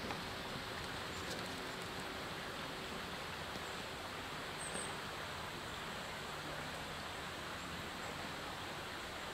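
Steady low hiss of quiet woodland ambience, with no distinct sound standing out.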